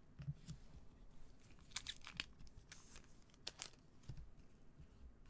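Faint handling noise of trading cards being slid and flipped through in gloved hands: a handful of short scrapes and clicks about two to four seconds in, with a few soft low thuds.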